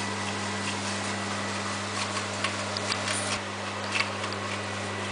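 Hand-operated flour sifter mug being worked over a plastic mixing bowl, giving scattered light clicks and scrapes, mostly in the second half. A steady low hum runs underneath.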